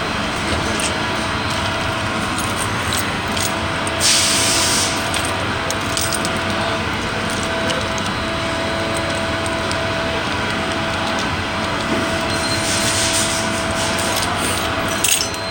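Steady drone of shop machinery with a faint whine, a short burst of hissing about four seconds in, and light clicks of keys and toolbox handling.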